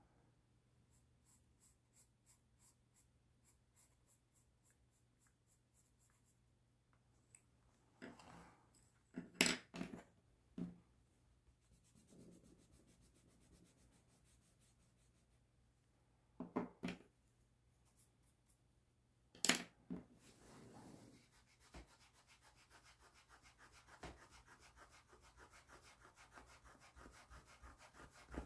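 Drawing strokes: a drawing tool scratching across the drawing surface in short, regular strokes about twice a second. Several louder knocks and handling sounds come in the middle. Near the end there is a longer stretch of continuous scratching, as in shading.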